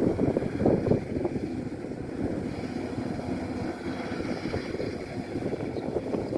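Kubota DC-105X rice combine harvester running, a continuous uneven mechanical rumble, with wind buffeting the microphone, strongest in the first second.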